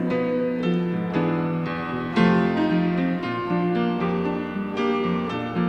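Piano playing a slow instrumental passage of sustained chords and single notes, struck one after another.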